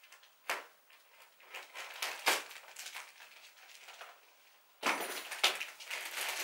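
Scissors snipping through a plastic postal mailer bag, two sharp cuts a couple of seconds apart, then the plastic mailer crinkling and rustling as it is handled near the end.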